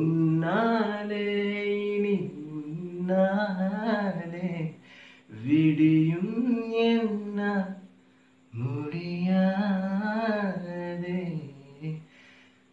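A man singing a Tamil song solo, in four long phrases with held, wavering notes and short breaths between them.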